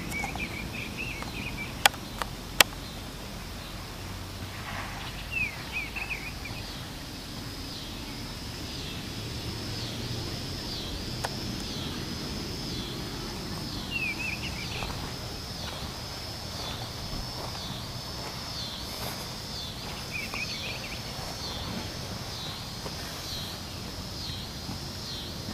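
Rural outdoor ambience: short bird chirps every few seconds over a high, pulsing call that repeats about one and a half times a second, with a low rumble of wind. Two sharp clicks about two seconds in.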